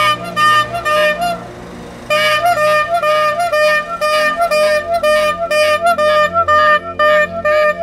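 Instrumental music: a quick, high melody of short repeated notes over a steady low accompaniment. The melody breaks off briefly about a second and a half in, then resumes.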